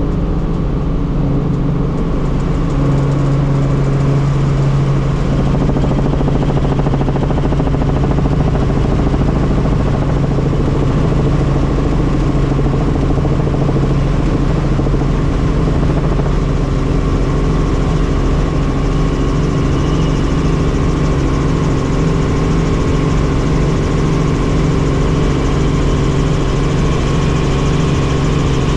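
Helicopter engine and rotor running steadily: a constant, unbroken drone with a steady low hum.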